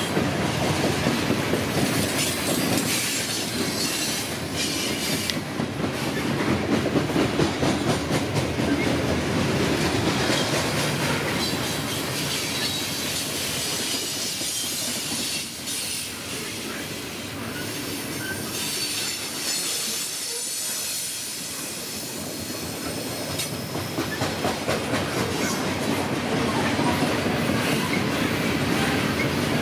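Loaded coal hopper cars rolling past on steel rails: a steady rumble of wheels with rhythmic clacking as the wheel sets cross rail joints, and a high wheel squeal. The clacking grows louder and more even near the end.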